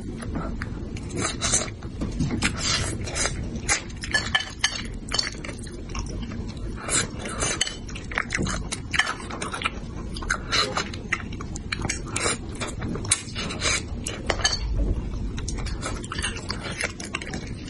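A man eating spicy braised bighead carp head close to the microphone: irregular wet chewing and mouth sounds, broken by sharp clicks of chopsticks against a metal bowl.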